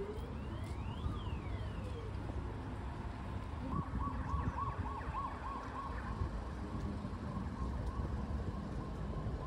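Outdoor street ambience: wind rumbling on the microphone, with faint rising and falling gliding tones early on and a faint wavering tone a few seconds in.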